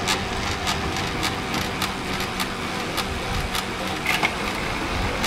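Road bike spinning on a turbo trainer under steady pedalling: a continuous hum with a faint whine, and light clicks about twice a second.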